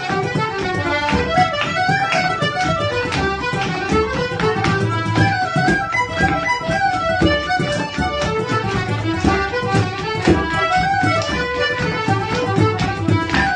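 Irish traditional dance tune played live on button accordion, fiddle and tin whistle, with the accordion leading. Dancers' steps beat in time on a wooden floor.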